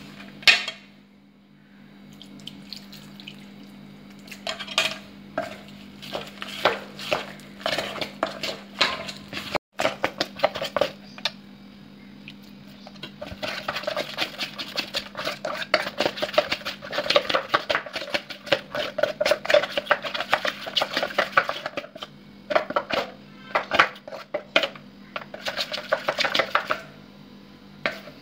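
Metal spoon clinking and scraping against a stainless steel bowl while stirring a thick flour-and-spice batter, turning to a fast, busy run of strokes in the middle.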